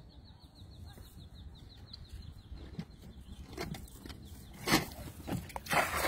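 Cast net being swung and thrown from a wooden boat: sharp swishes and knocks as it is swung, the loudest about three-quarters of the way in, then a broad splash near the end as the spread net hits the water.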